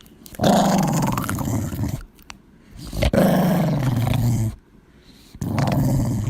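Dog growling: three long, deep growls, each sliding down in pitch, with short pauses between.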